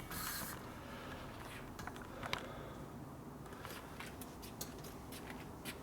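Faint, scattered clicks and light clinks of tools and parts being handled during motorcycle assembly, with a sharper click about two seconds in.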